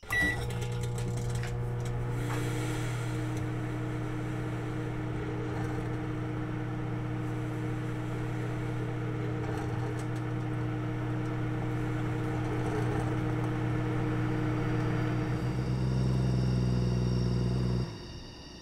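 Microwave oven running: a steady low electrical hum that starts abruptly and cuts off suddenly shortly before the end.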